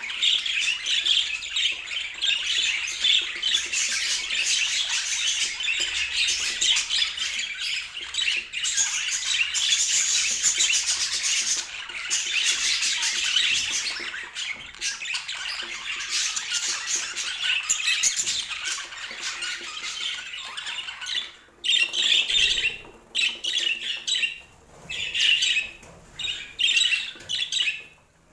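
Budgerigars chattering and warbling in a dense stream of quick, high squawks and chirps; after about twenty seconds the chatter breaks into shorter bursts with brief pauses between them.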